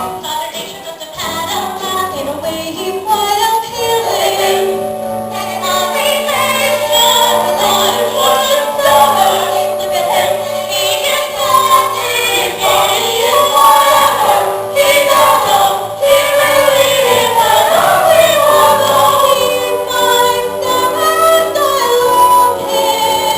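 A stage-musical ensemble of several voices singing together over an instrumental accompaniment with long held low notes.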